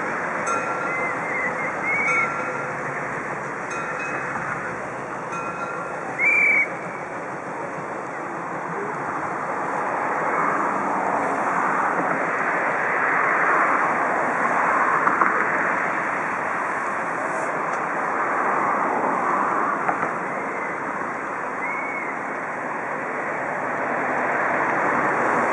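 Steady rushing noise, partly wind on the microphone, as a DR class 52.8 steam locomotive runs away along curved yard track. A few short high squeals come in the first seven seconds, the loudest about six seconds in.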